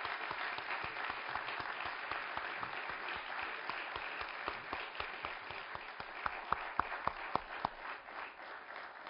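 Audience applauding: a dense, steady patter of clapping that thins out near the end, with a few single sharp claps standing out in the second half.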